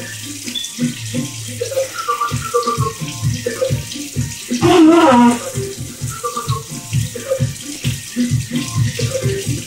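Kitchen tap running into a sink, with background music playing; louder for about half a second around the middle.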